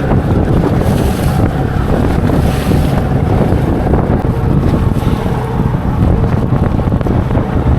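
Small flat-bottom boat under way in rough water: wind buffeting the microphone over the steady rush of water and the boat's motor.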